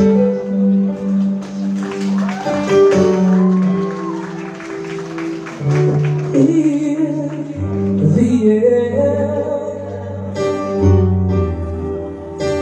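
A man singing live over his own electric keyboard, with held chords and a sliding, wavering vocal line; a deeper bass comes in a little past halfway.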